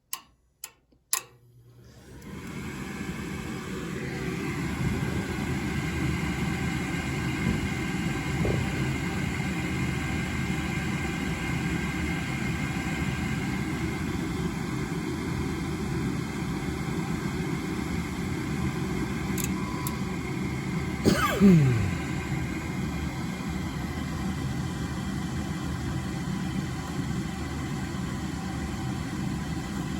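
Gas furnace started through jumpers on its control board: a few relay clicks, then a motor spins up over a few seconds into a steady running hum that holds. About two-thirds through, a brief sound sweeps down in pitch and stands out as the loudest moment.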